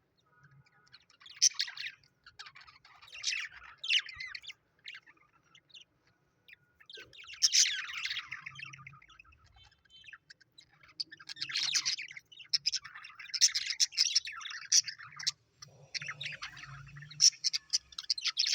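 Birds chirping and calling in short, high bursts of rapid chatter separated by brief pauses.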